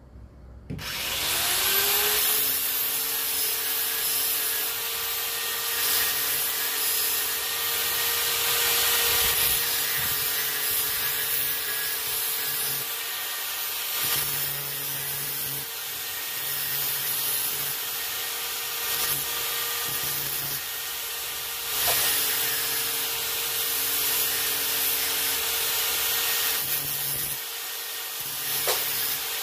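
Small high-speed handheld power tool spinning up about a second in and running steadily with a grinding hiss against the steel top of a submersible motor. Its pitch dips briefly three times as it bites, and near the end it starts to wind down.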